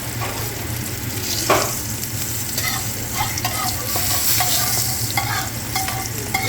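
Food sizzling in a hot pan while it is stirred, with a utensil knocking and clinking against the pan several times.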